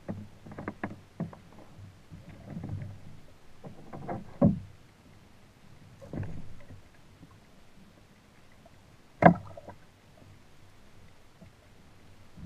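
Irregular knocks and clunks of gear handled on a plastic kayak: a fishing rod being set down and a fish lip gripper being picked up and used, with the loudest sharp knock about nine seconds in.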